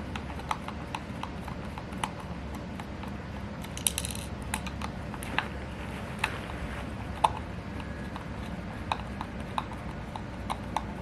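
Phillips screwdriver loosening screws in a plastic housing: irregular small clicks and taps, about one or two a second, with a short rasp about four seconds in.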